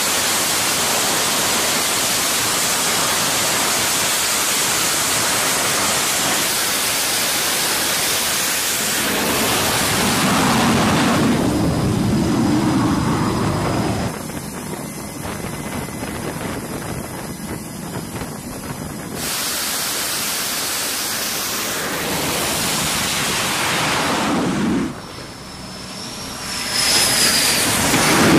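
Steady roar of wind across the microphone on a carrier flight deck, mixed with the noise of running jet engines and a faint high turbine whine in places. The roar changes abruptly a few times, dropping about halfway through and briefly dipping near the end.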